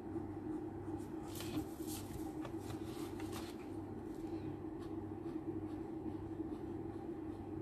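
Sheet of paper rustling and sliding on a wooden table as it is turned, mostly between one and three and a half seconds in, then faint strokes of a Sharpie fine-point marker on paper, over a steady low hum.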